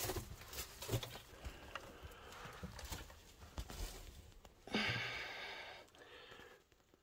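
Scattered footsteps on the loose rock floor of a narrow mine tunnel. Near five seconds in there is a short breathy sound lasting about a second.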